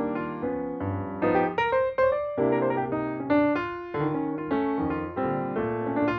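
Background piano music, with notes struck one after another about every half second.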